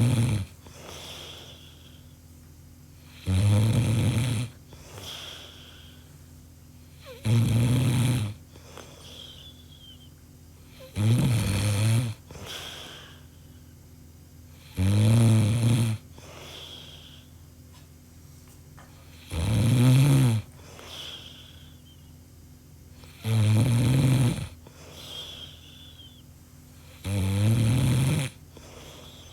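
A person snoring in deep sleep: a loud, buzzing snore about every four seconds, each lasting about a second, with quieter breathing between that sometimes carries a faint whistle.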